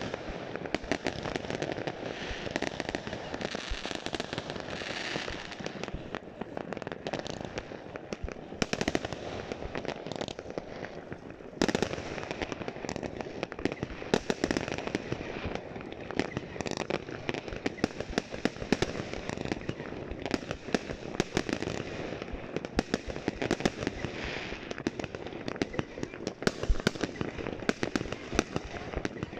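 Aerial fireworks going off without a break: a dense run of pops and crackles, with louder bangs scattered through, one especially loud about twelve seconds in.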